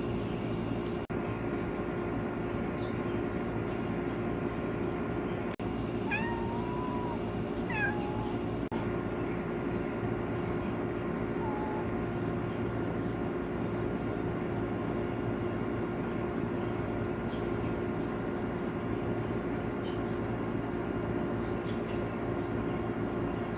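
Domestic cat meowing: two drawn-out meows about six to eight seconds in and a short one a few seconds later, over a steady background hum, with faint bird chirps.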